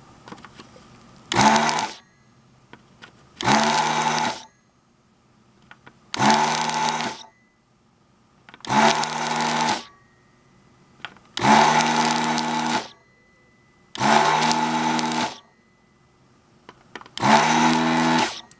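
The ZD-985 vacuum desoldering station's built-in vacuum pump is switched on by the gun's trigger seven times, each run lasting about a second. Each run is a motor hum with a rush of air as it sucks molten solder out of circuit-board holes.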